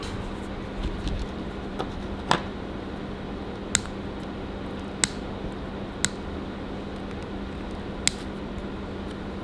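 Cutters snipping off the long protruding wire ends on a small circuit board: about five sharp, separate snips a second or so apart, over a low steady hum.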